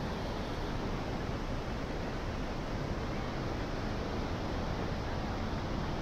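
Steady rushing noise of fast-flowing river water, an even roar with no breaks.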